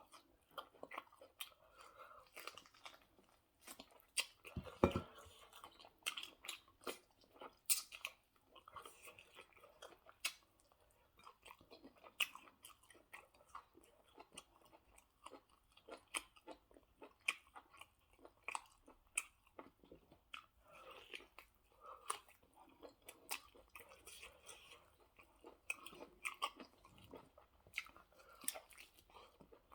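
Close-up chewing and mouth sounds of a person eating: irregular wet clicks and smacks, with a louder thump about five seconds in.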